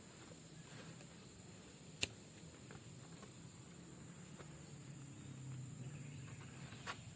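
Faint background sound: a steady high-pitched hum with a single sharp click about two seconds in.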